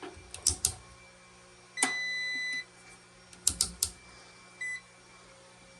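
Sharp clicks and light knocks of handling, with a steady electronic beep lasting under a second about two seconds in and a brief second beep a few seconds later, over a low steady electrical hum.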